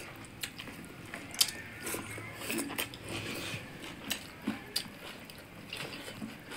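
Close-up eating sounds: chewing with wet mouth smacks and sharp clicks at irregular intervals, the loudest about a second and a half in, as rice and curry are eaten by hand.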